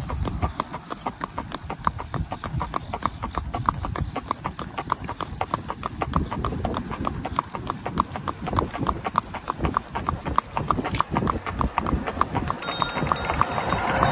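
Hoofbeats of a ridden horse moving at an even gait: a quick, steady clicking rhythm.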